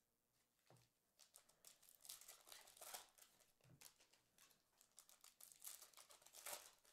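Faint crinkling and tearing of a trading-card pack's foil wrapper as it is handled and ripped open, with two soft knocks in between.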